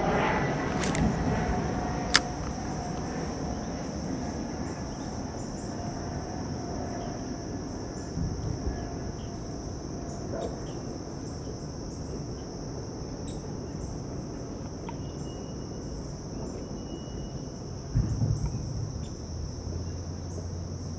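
Steady, high-pitched insect chorus. A passing aircraft fades out over the first couple of seconds, there is one sharp click about two seconds in, and a low rumble starts near the end.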